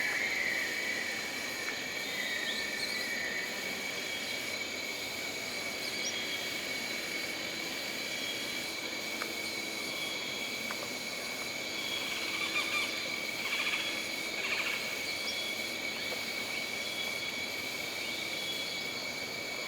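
Jungle ambience: a steady, high-pitched drone of insects at several pitches at once, with a few short trilling animal calls standing out about two-thirds of the way through.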